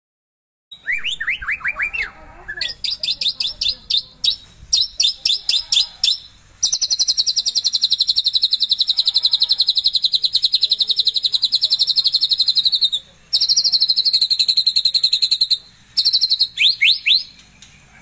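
White-rumped shama (murai batu) in full song, what keepers call 'gacor': after a moment of silence, a run of quick falling whistles, then rapid high notes, then a long, very fast high trill broken off once briefly, ending with a few falling whistles.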